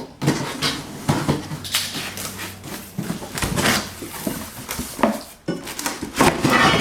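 Metal rack baskets and parts clattering, knocking and scraping as they are handled and set down on a workbench: a string of irregular knocks, the loudest near the end.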